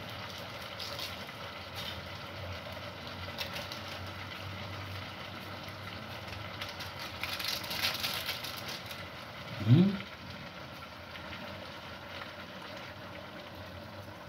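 Steady hiss of a covered pot simmering on the fire. A few light clicks of utensils come around eight seconds in, and a brief vocal sound, the loudest moment, comes near ten seconds.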